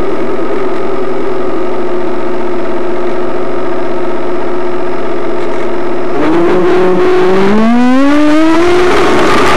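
Radio-controlled A-10 Warthog model's ducted-fan motors running with a steady whine, then throttled down and back up twice near the end, the pitch dipping and gliding up as they spool up.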